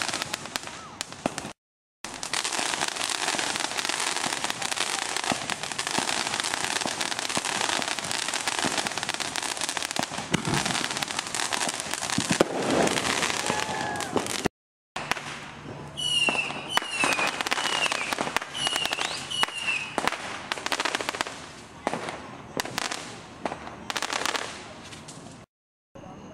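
Backyard consumer fireworks crackling and popping almost without a break, many sharp reports running together. After a cut, a run of about six short, high, falling whistles sounds over scattered pops.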